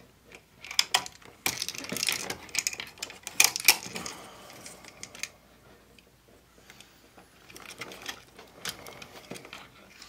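Irregular small clicks, taps and scrapes of stiff copper wires being handled and pushed into the back-wire holes of a plastic Lutron dimmer switch, busiest in the first half and sparser near the end.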